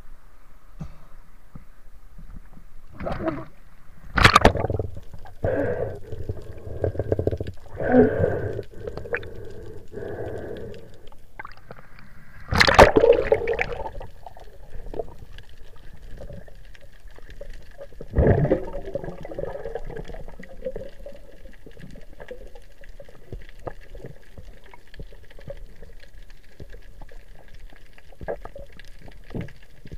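Sea water sloshing and splashing around a camera held at the surface, with a loud splash about 13 seconds in as the swimmer dives under. After that, muffled underwater sound with scattered faint clicks, one more splash-like burst, and a faint steady whine.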